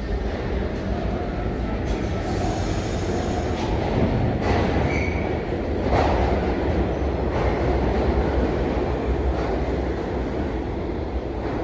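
New York subway train standing at the platform with its doors open: a steady low rumble, with a brief hiss about two and a half seconds in.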